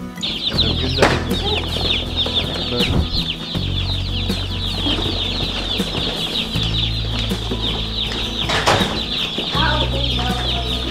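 A boxful of mail-order baby chicks peeping constantly inside cardboard shipping boxes, a dense high-pitched cheeping that starts abruptly just after the beginning. Under it is a low rumble from the boxes being carried, with a bump about a second in and another near the end.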